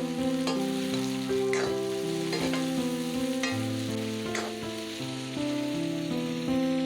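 Food frying and sizzling in a pan, with a spatula stirring and scraping against it about once a second. Instrumental background music of slow, held notes plays over it.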